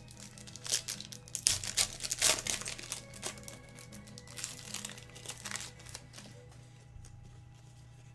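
Crinkling and tearing of a trading card pack's wrapper being opened by hand, busiest in the first three seconds and then thinning out to a few rustles.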